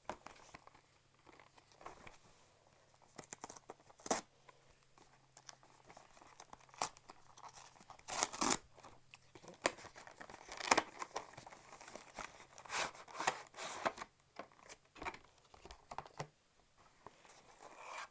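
Hands opening a cardboard phone box and handling plastic packaging: irregular rustling, crinkling and tearing with scattered sharp clicks, loudest about eight to eleven seconds in, over a faint low hum.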